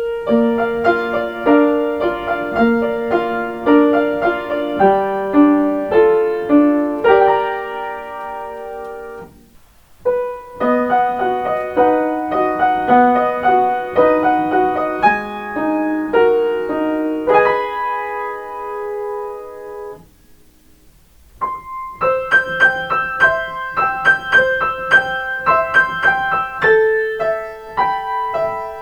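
Solo piano playing a train's onboard chime melody, transcribed by ear from a Kanto private railway's in-car chime. It comes in three short phrases with brief pauses between them, and the third, starting about 21 seconds in, is pitched higher.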